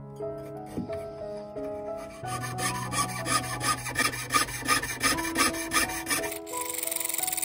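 Jeweler's piercing saw with a fine blade cutting through thin brass plate, rasping at about four strokes a second from about two seconds in and turning to a faster, higher hiss near the end. Soft background music plays underneath.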